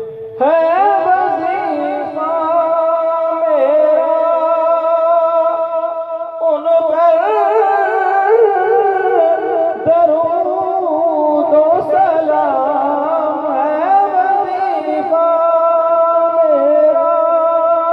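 A naat, an Islamic devotional song, sung in a wavering, ornamented melody over long held notes. It comes in sharply about half a second in.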